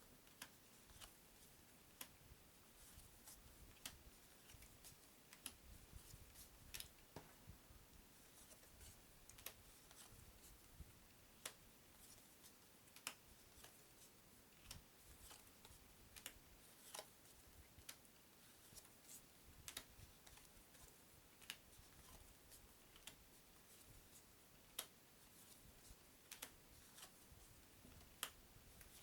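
Faint, sharp clicks about once a second from Uno playing cards being handled and set down one at a time, over near silence.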